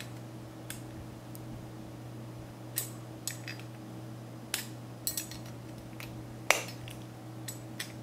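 Pliers clinking against the metal posts and mounting bracket of a Koolance CPU water block as the posts are tightened: a scattered series of sharp metal clicks, the loudest about six and a half seconds in, over a steady low hum.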